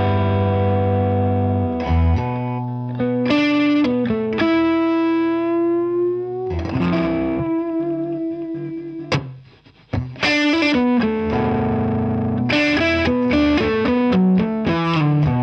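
Tonmeister*In Prototyp II paulownia solidbody electric guitar with Kloppmann HB58 humbuckers, played amplified: chords left to ring, a note slowly bent upward about five seconds in, a moment of near quiet just after nine seconds, then a run of struck chords.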